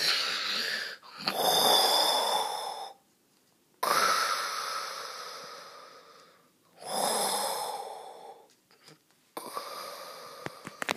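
A person making long, breathy, wheezing mouth sounds in four bursts with short pauses between them; some start suddenly and fade away.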